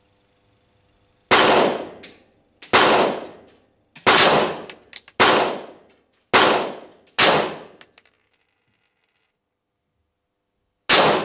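Pistol shots, seven in all, each with a short ringing echo: six fired at roughly one a second, then a pause of about three and a half seconds before a last shot near the end.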